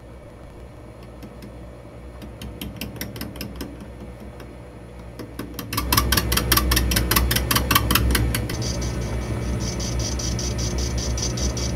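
Metal lathe running with a cutting tool turning a brass cylinder: a steady machine hum under a rapid, even ticking of about eight clicks a second as the tool strikes the workpiece's raised lobe once each turn, an interrupted cut on stock that has not yet cleaned up round. The cut gets much louder about six seconds in, and a steady high whine joins it near the end.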